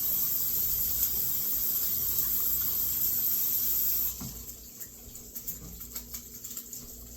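Water being poured off a pot of cooked green beans into a sink: a steady rushing pour for about four seconds that stops abruptly, followed by faint scattered ticks.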